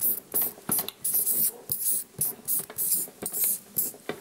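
Felt-tip marker scratching across flip-chart paper as capital letters are written: a quick run of short, hissy strokes, about three a second.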